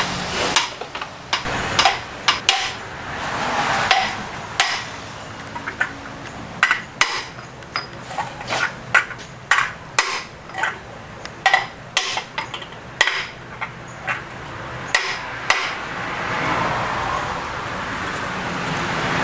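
Irregular sharp metallic clanks and taps of tools and engine parts being handled and knocked against each other, about twenty over the span, with a hiss building near the end.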